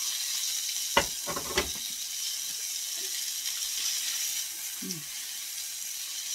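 Asparagus and ramps sizzling on a hot stone griddle plate, a steady hiss. Two sharp clicks come about a second in.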